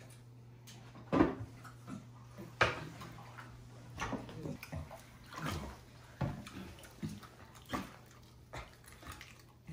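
Bath water splashing and sloshing in a bubble-filled bathtub as a chimpanzee moves in it: a string of short separate splashes a second or so apart, over a steady low hum.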